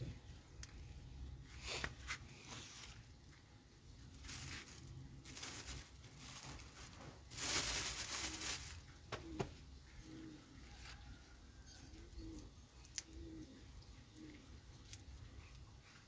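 A dove cooing: a series of short, low notes in the second half. Before it come a few short bursts of scratchy noise, the loudest about halfway through.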